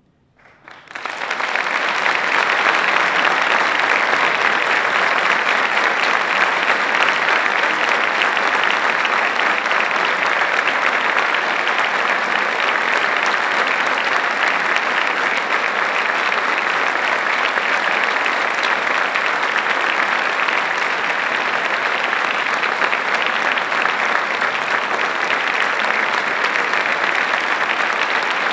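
Concert audience breaking into applause about a second in, then clapping steadily.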